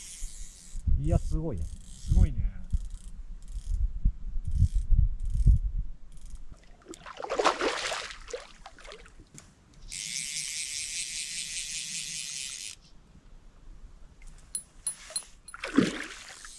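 Fly reel's click-and-pawl ratchet buzzing steadily for about three seconds while a hooked fish is played, after a run of low knocks from handling. A fish splashes at the surface near the end.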